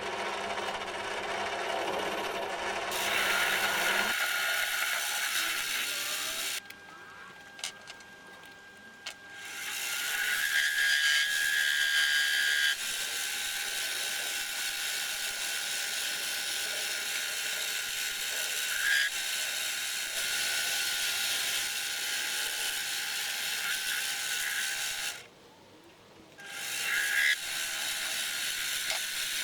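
Head of a turned mild-steel part being abraded clean with a tool: a steady, high, scraping hiss. It stops twice for a few seconds, about seven seconds in and again near the end.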